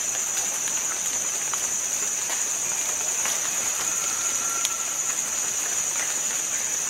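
Rainforest insect chorus: a steady, high-pitched drone. Scattered light clicks and snaps sound over it, and a faint short tone comes about four seconds in.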